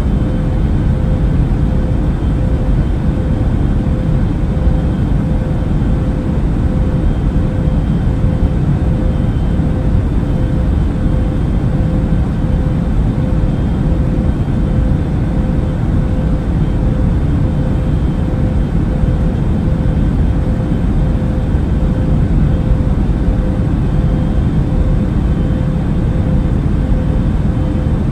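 Airplane cabin noise in flight: a steady, unchanging low rumble of engines and rushing air, with a faint steady hum above it.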